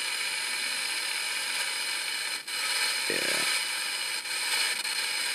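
Steady radio static hiss from a receiver's speaker, with a brief low sound about three seconds in.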